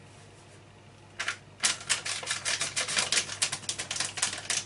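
Paper packet of pudding powder crinkling and rustling as it is shaken out over a mixing bowl: quiet at first, then from about a second and a half in a fast run of sharp crackles and taps.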